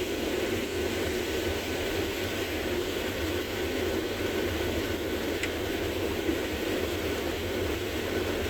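Combine harvester running with a steady, even drone.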